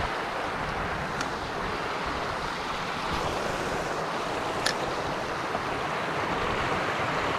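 Creek water rushing steadily over rocks in shallow rapids, a continuous even hiss. Two faint sharp clicks come through, about a second in and around the middle.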